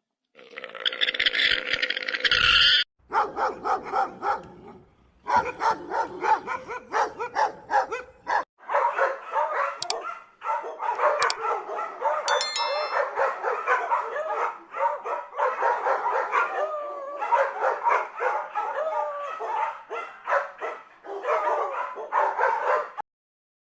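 Dogs barking and yipping in a run of short clips that cut from one to the next, with stretches of high, wavering whining calls; the sound cuts off shortly before the end.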